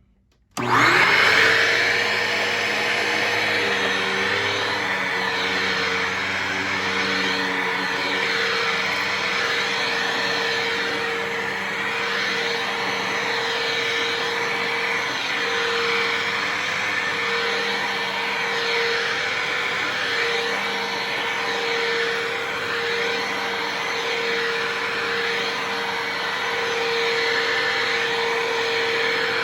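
Dirt Devil Vision MVP Swivel Glide upright vacuum cleaner switched on about half a second in, its motor whining up to speed within a second and then running steadily.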